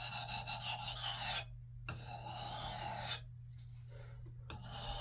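Oiled sharpening stone, its fine side, rubbed along the edge of a Gränsfors Bruks axe in three long strokes with short pauses between them, honing out a small chip.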